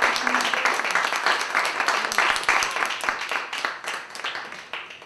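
Audience applauding at the end of a live jazz song, the clapping fading away over the last couple of seconds.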